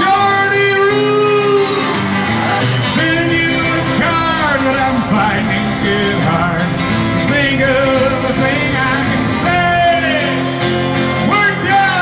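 A song: a man singing over twelve-string acoustic guitar, in a country or rock-and-roll style.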